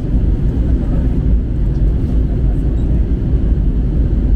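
Steady low rumble of a vehicle in motion, unchanging throughout.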